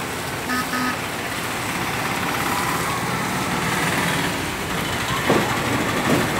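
Steady heavy rain on a wet road, with auto-rickshaws and a motorcycle driving past through the water, their engines and tyres on the wet road mixed in. A short double beep about half a second in, and a vehicle passing close near the end gives two louder swells.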